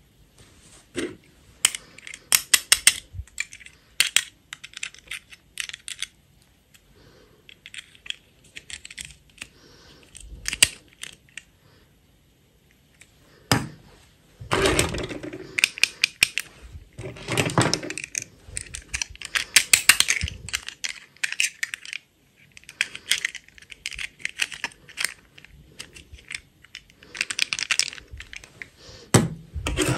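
Small plastic dolls and their hard plastic snap-on dresses being handled on a tabletop: clusters of quick plastic clicks, taps and clatters as dresses are fitted on and pieces are picked up and set down, with short pauses between.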